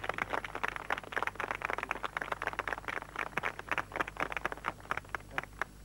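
A small group clapping their hands in applause, thinning out and stopping shortly before the end.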